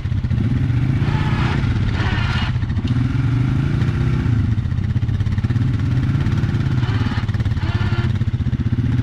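Off-road vehicle engine running steadily under way, a continuous low drone with little change in speed.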